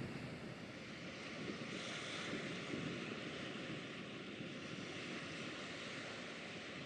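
Wind buffeting the microphone over a steady wash of river water, with no distinct engine heard.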